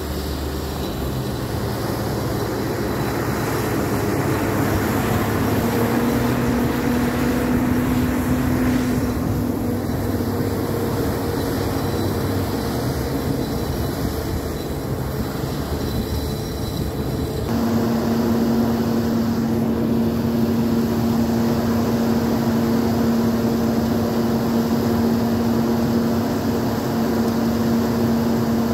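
Muskeg tracked tractor's engine running as the machine drives through snow, a steady drone that rises a little in pitch over the first few seconds. About two-thirds through, the sound changes abruptly to the engine running at a constant pitch.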